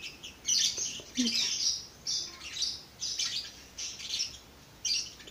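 Birds calling: a quick series of short high chirps, about two a second, with brief gaps between runs.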